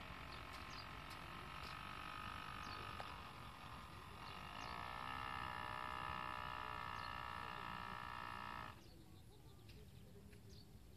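Radio-controlled model boat's motor whining steadily as it runs out across the water. It gets louder about four and a half seconds in and cuts off abruptly near nine seconds, as the throttle is closed.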